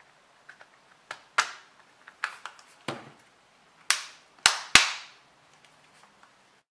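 Nokia Lumia 920's polycarbonate shell snapping shut around the phone as it is pressed together by hand: a series of about eight sharp plastic clicks, the three loudest close together near the end.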